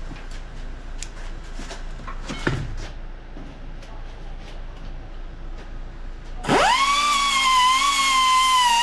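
Light clicks and knocks of handling. About six and a half seconds in, an electric grinder spins up quickly and runs with a loud, steady high whine.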